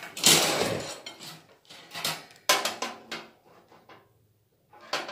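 Steel skewers clattering and clinking against each other and against a portable barbecue grill's sheet-metal box as they are handled and set in place. There is a loud clatter just after the start, then several shorter runs of metallic clinks.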